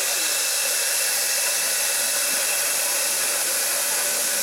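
Steady hiss of steam escaping from a standing steam locomotive around its cylinder.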